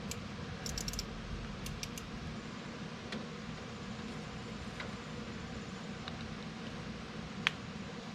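Scattered light clicks and small handling sounds over a steady low background hum, with one sharper click near the end.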